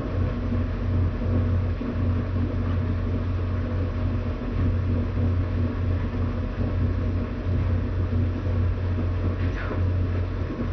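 A steady low rumble that wavers slightly, with one faint short sweep near the end.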